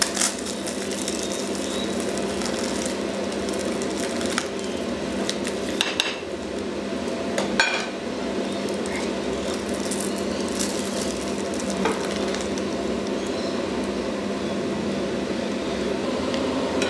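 A few short clinks and knocks of a plastic knife and a ceramic plate as a burger is cut and handled, over a steady low hum.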